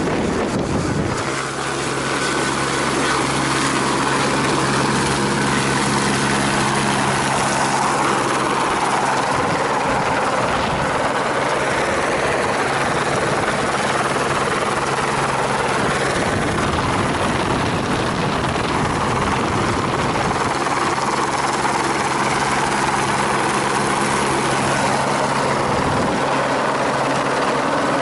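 Helicopter running steadily, with rotor and engine noise and a hum that holds one pitch and fades for a few seconds in the middle.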